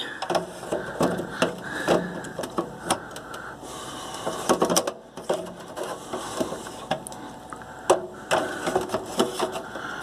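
A blue plastic hard-drive caddy, holding a Western Digital VelociRaptor drive, being lined up in the sheet-metal drive bay of a Dell OptiPlex GX620: irregular plastic clicks, knocks and scrapes as it is worked into place, with a couple of sharper knocks about halfway and near the end.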